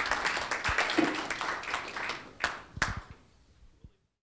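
Audience applauding, the clapping thinning out to a few scattered claps, then cut off to silence about four seconds in.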